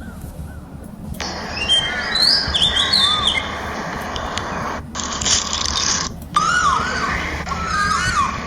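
Small birds chirping: many short, rising-and-falling calls repeated over a steady background hiss that drops out abruptly a few times.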